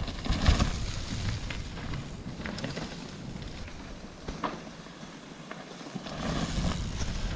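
Mountain bikes riding past over loose loam and dry leaf litter: tyres crunching and drifting, with scattered clicks and knocks. One bike passes near the start and another about six seconds in, with a quieter stretch between.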